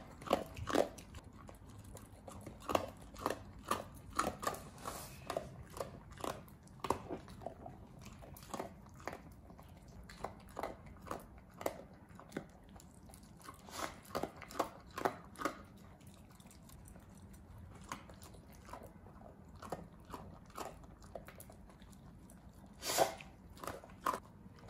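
Dogs eating: irregular crunching and chewing of dry kibble and dried pollack shreds, a whippet in a plastic cone collar at its bowl and a second dog picking pieces off the floor, with a quick run of crunches near the end.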